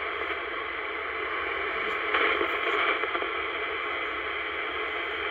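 Royce 619 CB base station receiver hissing steadily with band static through its speaker, a weak distant station very quiet under the noise.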